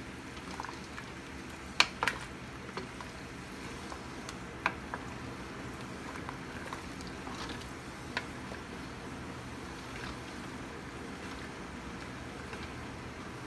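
Pot of water with black glutinous rice boiling, a steady bubbling as a wooden spoon stirs it, with a few sharp knocks of the spoon against the metal pot, the loudest about two seconds in.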